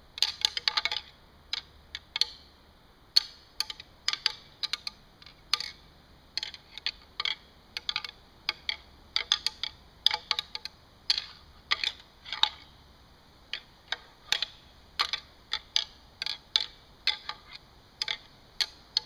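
A pair of white-tailed deer antlers rattled softly together: light, irregular clicking and ticking as the tine tips tap and rub against each other in loose clusters. This is gentle early-season rattling, meant to imitate two bucks sparring lightly.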